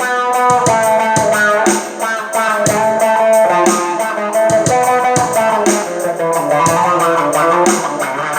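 Electric guitar played through a wah-wah pedal, a continuous line of picked notes changing about every half second.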